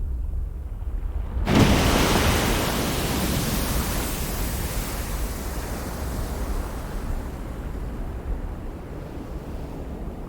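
Erupting volcano: a deep steady rumble, and about a second and a half in a loud rushing hiss that starts abruptly and slowly dies away.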